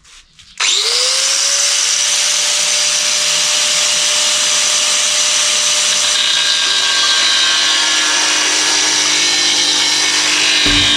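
An electric power tool spins up about half a second in and runs steadily at full speed, with a high, even whine; its sound changes slightly about six seconds in.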